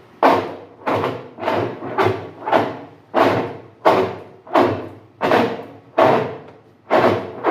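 Consul CWC08 washing machine's agitator drive making a loud grinding racket on every agitation stroke, about one and a half bursts a second, each starting sharply and fading, while the agitator is held back under load. The agitator itself is not stripped; the technician thinks it looks like a broken cam in the drive.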